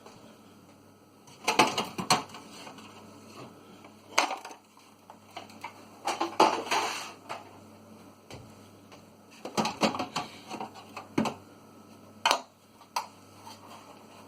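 Food containers and bottles knocking and clattering as they are lifted out of a fridge and set down, in scattered bursts every second or two.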